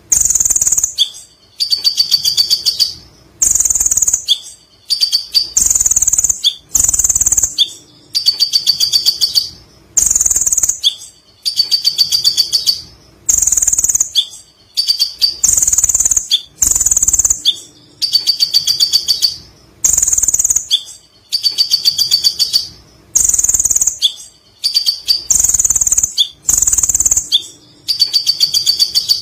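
A kolibri ninja sunbird singing: high, rapid chattering trills about a second long, repeated with short pauses about every second and a half.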